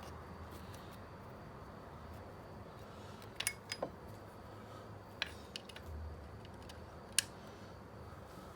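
A few sharp metallic clinks of a hand Allen key against the engine's hex screws, over a low steady hum.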